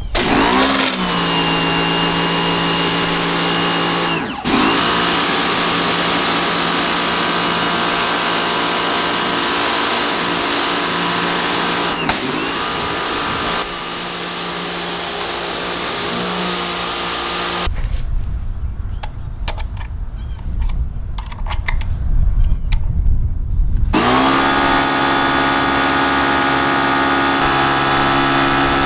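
TEANDE 3800 PSI electric pressure washer running while spraying: a steady motor-and-pump hum under the hiss of the water jet. It spins up with a rising pitch just after the start and dips briefly twice. Past the middle it stops for about six seconds, leaving a low rumble and a few clicks, then spins up again.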